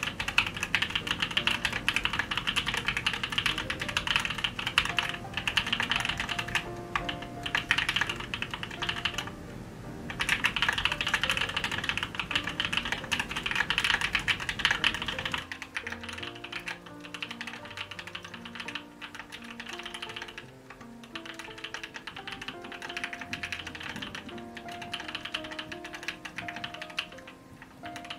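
Continuous typing on a mechanical keyboard with Gateron Cream Soda linear switches on a 5 mm polycarbonate plate: quick runs of key clacks and spacebar hits, with a brief pause about ten seconds in. Soft melodic music plays underneath.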